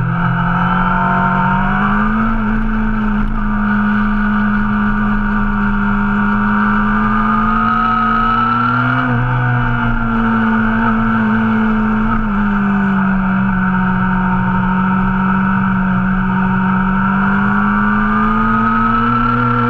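Motorcycle engine with an aftermarket exhaust running at a steady, loud speed. Its pitch lifts about two seconds in, eases down slowly through the middle and rises again near the end.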